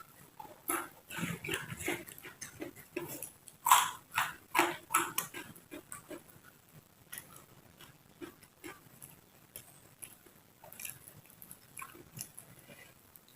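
Close-up chewing and crunching of raw vegetables (lalapan) in the mouth: irregular wet crunches and smacks, densest in the first few seconds and thinning out after that.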